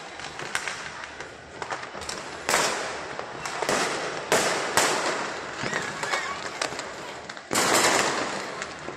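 Fireworks going off across the city: a string of about five sharp bangs, each trailing off in a long echo, over a steady background of distant popping and crackling. The last bang, near the end, is among the loudest.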